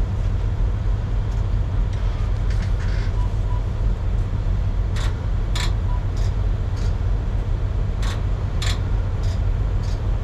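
A steady low engine rumble with a series of sharp ticks about every half second starting about halfway through: the no-start semi truck ticking instead of cranking, a sign of a poor battery connection.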